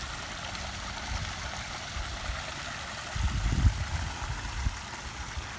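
Wind buffeting the phone's microphone, a steady rushing with low gusty rumbles that swell strongest about three seconds in.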